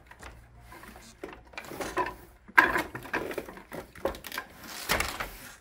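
Wooden handloom being worked by hand: irregular knocks and clatter of wooden loom parts and the wool warp threads, with a sharp knock about two and a half seconds in and a heavier thump near the end.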